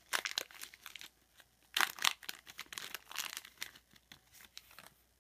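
Foil wrapper of a Topps Chrome football card pack crinkling as it is pulled open and the cards are slid out, in several short bursts that die away near the end.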